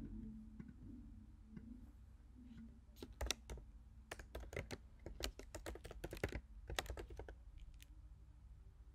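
Typing on a computer keyboard: a quick, irregular run of keystrokes starting about three seconds in and thinning out near the end.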